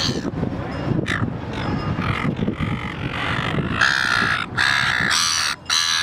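Silver gull giving harsh, squawking calls, a few scattered ones at first, then a quick run of longer calls in the second half, over a low background rumble that fades out midway.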